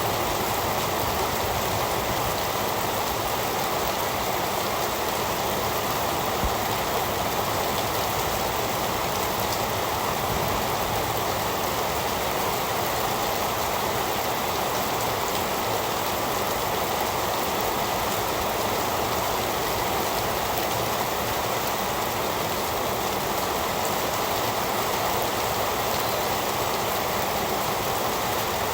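Heavy rain falling steadily, a dense even hiss of rain on surfaces with no let-up.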